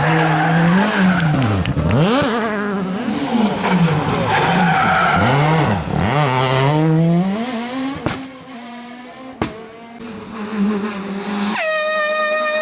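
Renault Clio S1600 rally car's engine revving hard, its pitch climbing and dropping rapidly through gear changes and lifts. After about eight seconds it falls quieter, with two sharp clicks, and near the end a steady, higher-pitched note starts.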